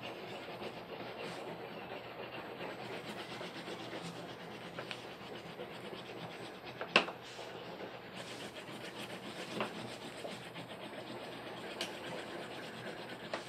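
Wax crayon scratching rapidly back and forth on paper while shading in a sky, a steady rasp of many short strokes. A sharper tap stands out about halfway through.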